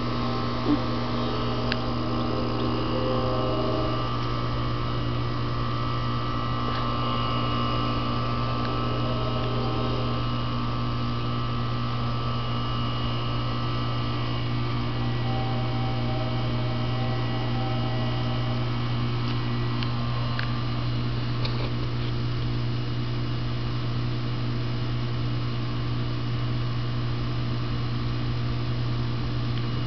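Air conditioning unit running in the background: a steady hum, with a few fainter tones above it that come and go.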